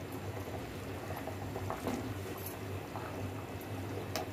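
Spicy crab curry at a full boil in a large aluminium pot, bubbling steadily with small scattered pops. There is a single sharp tap near the end.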